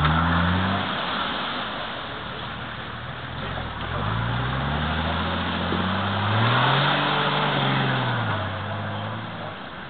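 Off-road 4x4 SUV engine revving in three surges, pitch falling away near the end, as the truck drives through a muddy pond and climbs out up the bank. Water and mud hiss underneath.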